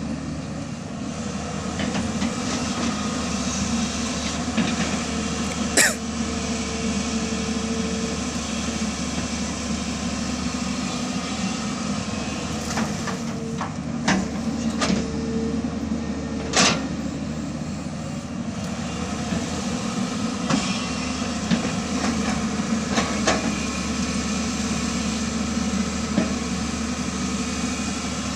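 Diesel engine of an earthmoving machine (backhoe loader or excavator) running steadily under work, with a few sharp metallic knocks and clanks from the digging gear.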